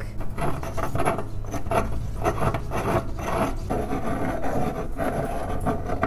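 Stone pestle grinding charcoal in a stone mortar: continuous scraping and rasping in quick, irregular strokes.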